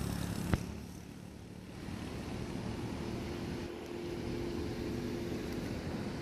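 Hitachi Zaxis 200 hydraulic excavator's diesel engine running steadily, with a single sharp knock about half a second in. A steady higher whine sits over the engine for about three seconds in the middle.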